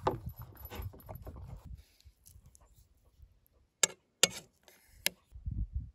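A chocolate Labrador eating from a bowl, chewing and licking for the first couple of seconds. Then a metal fork clicks sharply against a plate three times, the loudest sounds.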